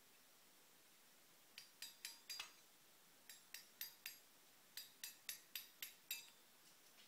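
Light, ringing taps of a claw hammer on the steel body of a CNC router spindle clamped in a bench vise: three quick runs of taps, four, then four, then six, at about four a second.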